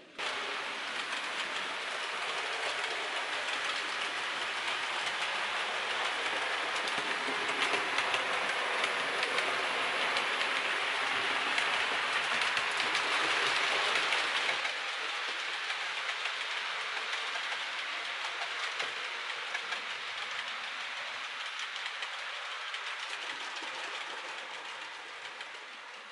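A train running at speed on rails: a steady rushing rail noise that cuts in suddenly, swells to its loudest just before halfway, drops off abruptly and then fades away toward the end.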